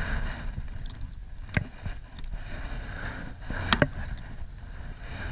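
Hobie kayak's MirageDrive pedal drive being pedaled, with a sharp click about every two seconds, over a steady rumble of wind and water.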